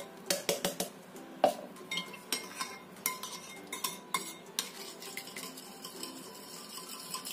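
Stirring a wet batter of pumpkin puree, sugar and coconut milk in a bowl: a utensil scraping and clicking irregularly against the bowl, the strokes thinning out after about five seconds.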